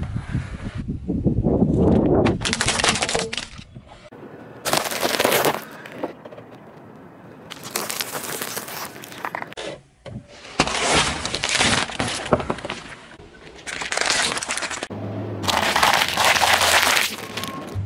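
Car tyre rolling over and crushing objects on asphalt: several separate bursts of cracking and crunching, each starting and stopping abruptly.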